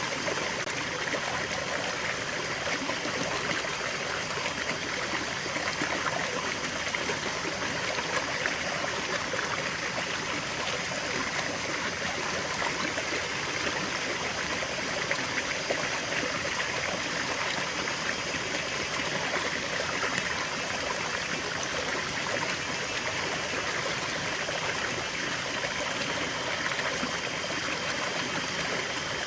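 Small stream of water flowing and trickling steadily, an even splashing babble without breaks.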